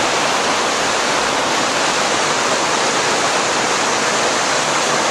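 Mountain stream cascading: a loud, steady, even rush of water with no breaks.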